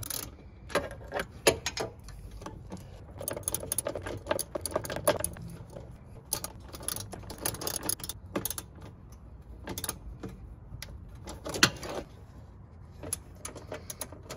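Ratchet wrench clicking in short, irregular runs, with light metal clinks from the socket and tool handling, as screws are tightened down on a plastic mower-deck pulley cover.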